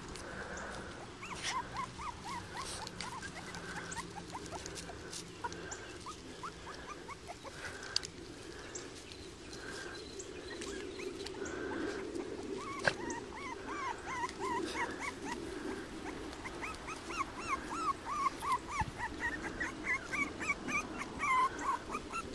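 Papillon puppy whimpering and squeaking in short high cries that come faster and louder in the second half.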